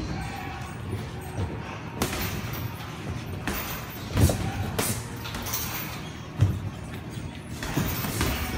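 Boxing sparring: scattered dull thuds of gloved punches and feet moving on the ring canvas, with about four sharper hits standing out.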